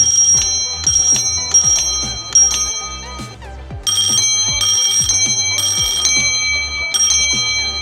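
Homemade electromagnetic doorbell ringing: a coil-driven iron striker rapidly hammers a bicycle bell dome, giving a bright bell ring in repeated short bursts with a pause of about a second near the middle. Background music with a steady beat plays under it.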